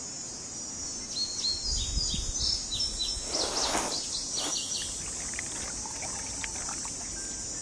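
Small birds chirping in quick, repeated short notes over a steady high insect hum, with a brief rushing whoosh about three and a half seconds in.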